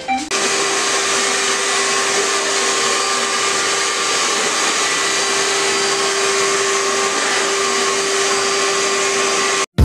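Handheld hair dryer running steadily as it blows on wet hair, a rush of air with a constant hum; it stops abruptly near the end.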